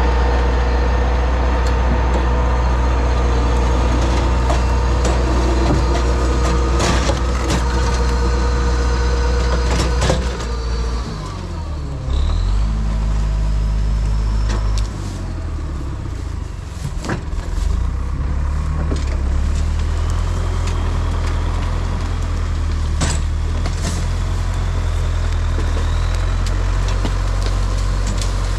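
LKT 81 Turbo skidder's diesel engine running hard while its winch drags a bundle of logs in on the cable, with scattered knocks and scrapes. About ten seconds in the engine note falls, then it runs on at a lower, steady pitch.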